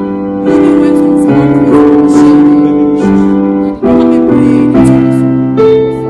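Background keyboard music: slow held chords that change about once a second.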